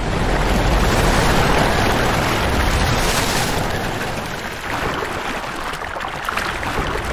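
Sound effect of a huge wave of rushing water: a loud, dense roar with a deep rumble that surges in at the start and eases a little about four seconds in.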